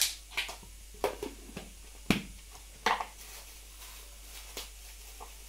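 Hands handling small plastic packets and a plastic storage tub: a string of separate sharp clicks and crinkles, about six in all, the loudest at the start and about two seconds in.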